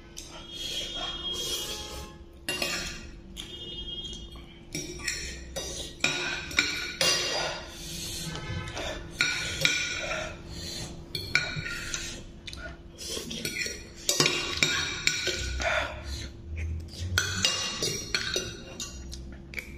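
A metal fork and spoon clinking and scraping against a ceramic plate in many short, irregular strikes while noodles are cut and scooped, with music playing faintly underneath.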